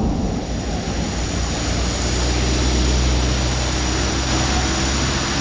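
Heavy rain hissing steadily on a flooded street, with a motor vehicle passing through the water; its low engine hum swells about two seconds in and fades near the end.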